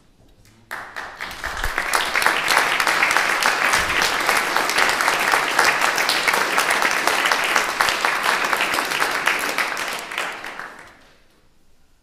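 Audience applauding, starting abruptly about a second in, holding steady, and dying away near the end.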